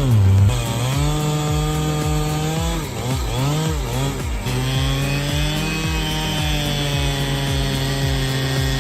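Chainsaw engine running at high speed while cutting through wood. Its pitch dips briefly several times as the chain bogs down in the cut, then recovers.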